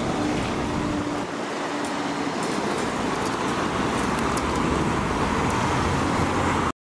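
Road traffic: cars driving over the level crossing just after the barriers have lifted, a steady mix of engine and tyre noise. A steady hum stops about two seconds in, light clicks come through in the second half, and the sound cuts off suddenly near the end.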